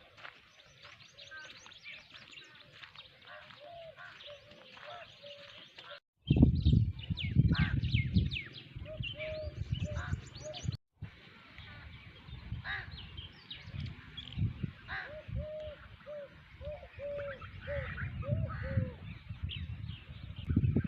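Several birds chirping and calling, with many short high chirps and a run of repeated lower calls. The sound cuts out abruptly about six seconds in and again near eleven seconds. After the first cut a loud low rumble joins and stays under the bird calls.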